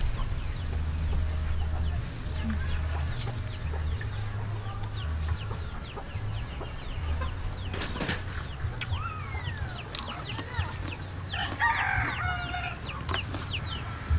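Domestic chickens clucking around a yard, with many short high chirps throughout and a rooster crowing about twelve seconds in.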